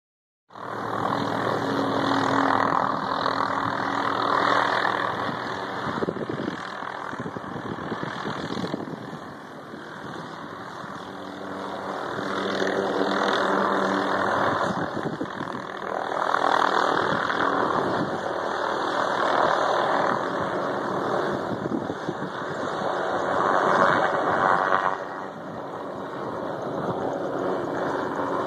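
A vehicle engine idling steadily under a rushing noise that swells and fades several times.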